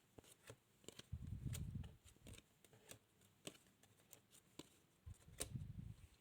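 Faint handling of playing cards on a table as cards are discarded and dealt: scattered light clicks and two short soft rustles.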